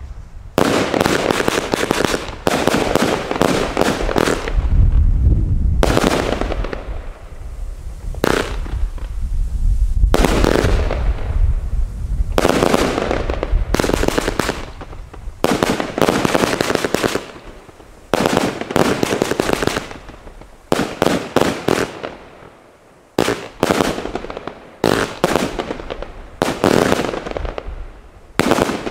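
Consumer firework compound cake firing a rapid sequence of shots, each a sharp bang trailing off in a fading hiss. The firing is nearly continuous at first, then comes in short clusters with brief gaps in the last third.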